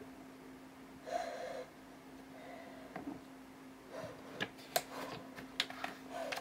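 A man breathing heavily through the nose, one loud breath about a second in, then a run of sharp crinkles and clicks in the last two seconds as he handles packaging. A faint steady hum runs underneath.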